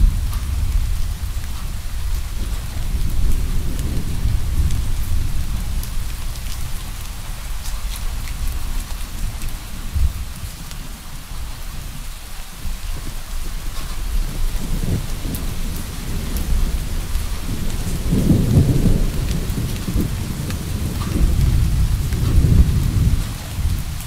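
Steady rain hissing, with distant thunder rumbling low underneath and swelling several times, loudest in the second half.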